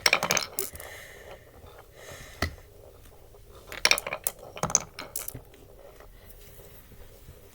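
Glass marbles rolling and clattering through a Cuboro beech-wood marble run: bursts of clinks and knocks at the start, about four seconds in and about five seconds in, with softer rolling in between.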